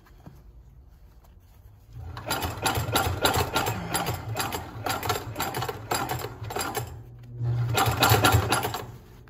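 Consew 733R-5 walking-foot lockstitch industrial sewing machine stitching through a thick stack of denim layers, a rapid even clatter of stitches that starts about two seconds in, dips briefly near the seven-second mark and stops just before the end. The machine is running with no oil in it.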